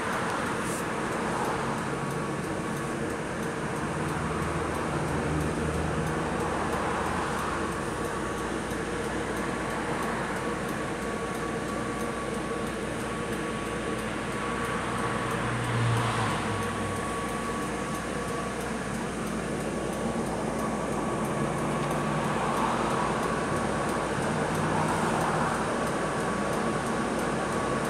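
Scania K320UB city bus heard from inside the passenger cabin while under way: steady engine and road noise with a faint steady whine. The engine note swells several times as the bus pulls, most strongly about halfway through.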